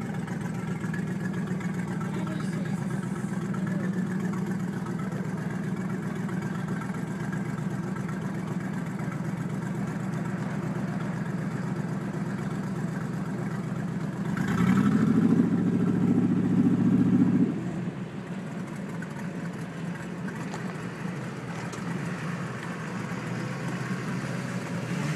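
Engine of an amphibious van-and-boat combination vehicle idling steadily; about halfway through it revs up, holds the higher pitch for about three seconds, then drops sharply back to idle.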